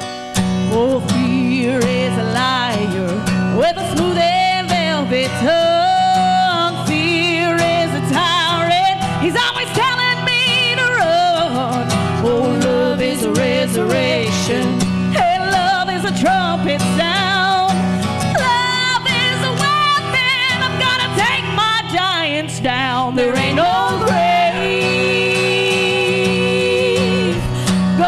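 Live gospel music: a woman singing long, wavering notes through a microphone over a strummed acoustic guitar, with a steady low backing underneath.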